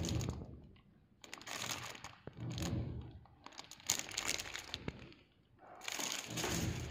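Clear plastic packaging bag crinkling in several bouts as it is handled, with a sharp click about four seconds in.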